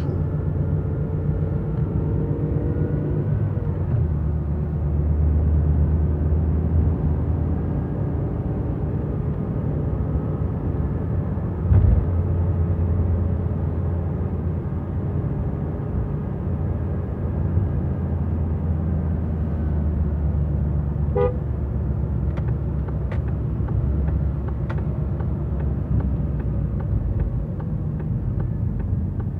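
Car driving, heard from inside the cabin: a steady low hum of engine and tyre noise, with a single thump about twelve seconds in and a brief beep about two-thirds of the way through.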